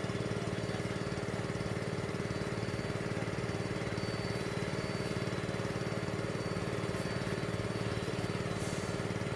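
A steady engine drone at an unchanging level, with no revving or build-up.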